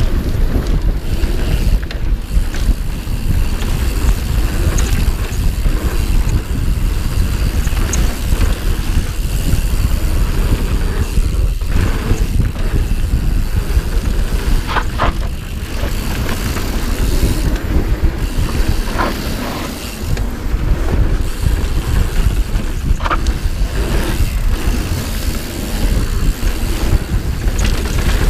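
Santa Cruz Hightower Plus mountain bike riding fast down a dirt trail: tyres running over dirt and roots and the bike rattling, under a heavy low rumble of wind on the microphone. A few short squeals stand out about halfway through and later.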